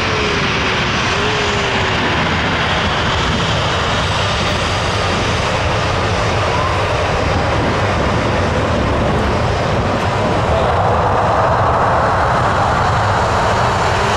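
Boeing 757's Rolls-Royce RB211 jet engines running as the airliner taxis and turns, a steady rumbling roar that grows a little louder about ten seconds in.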